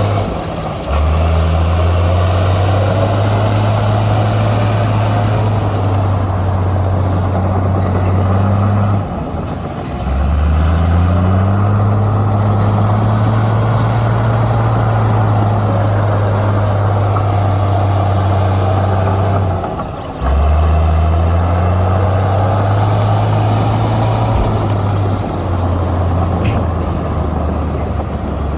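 Heavy diesel engine of a Komatsu bulldozer working steadily. Its revs drop off and then climb back up about every ten seconds, three times over.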